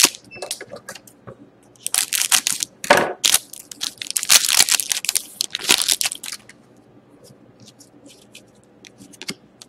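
Foil trading-card pack crinkling and being torn open, in several loud crackly bursts over the first six seconds or so. A few faint ticks follow as the stack of cards is handled.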